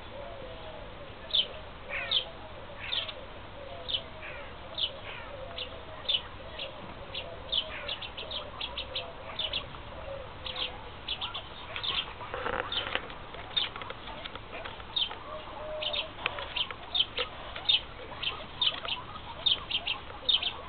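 Group of guinea pigs squeaking as they eat salad greens: many short, high squeaks, several a second, with some lower wavering calls in the first half.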